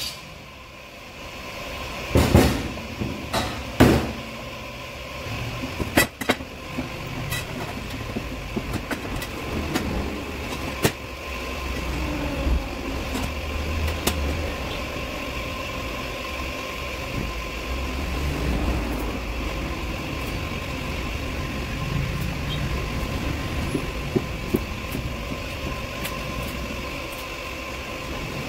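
Steady low rumble of workshop background noise with a thin steady hum, broken by a few sharp knocks in the first ten seconds or so.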